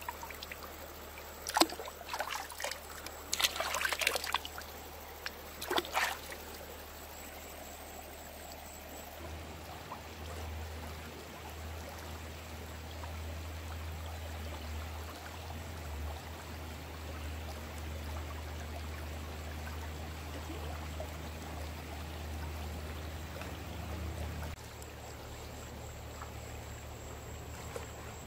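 Shallow rocky stream flowing and trickling, with several sharp splashes of a hand in the water during the first six seconds. A steady low rumble joins from about nine seconds in.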